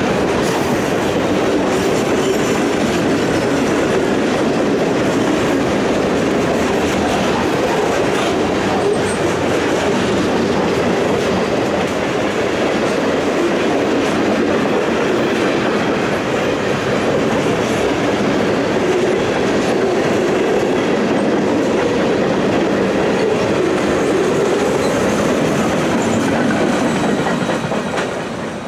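A long, heavy freight train's cars rolling past at speed, their wheels clattering steadily over the rails, the sound easing off slightly near the end.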